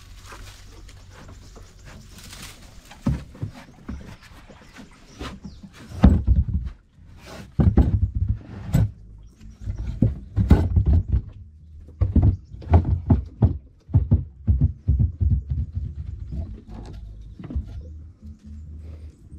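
Irregular dull knocks and thuds, starting about three seconds in and coming in clusters of several a second: a hand tapping and handling a floating stone on the deck of a wooden boat.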